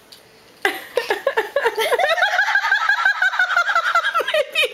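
High-pitched giggling and laughter, starting after a short lull about half a second in and carrying on as a long wavering giggle.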